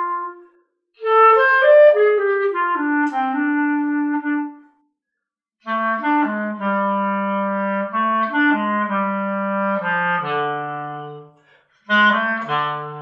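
Solo clarinet playing a slow jazz-style melody in phrases broken by short rests, near the end settling onto a long low note.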